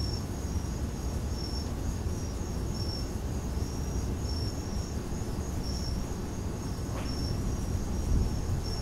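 Crickets chirping: short high-pitched chirps repeating about every second and a half over a steady high insect trill. A low wind rumble on the microphone runs underneath.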